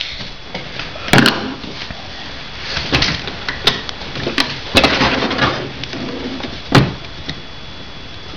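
Hard plastic toy pieces being handled on a toy kitchen counter: a toy pot and a toy cash register knocked and set down. It makes a string of separate sharp clacks, with some scraping in between.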